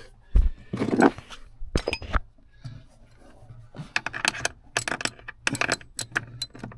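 Loose metal items jangling and clinking, with a few heavy knocks in the first two seconds and a quick run of sharp clinks about four seconds in.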